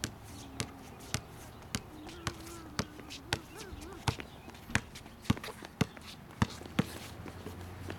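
A basketball being dribbled on an outdoor hard court: sharp, even bounces about twice a second that stop about seven seconds in.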